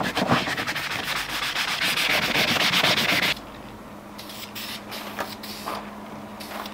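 Sandpaper rubbed back and forth by hand along a steel strut bar, fast rasping strokes, taking off its old layers of paint before repainting. About three seconds in it cuts off suddenly, and short hisses of an aerosol spray-paint can follow, with a faint steady hum underneath.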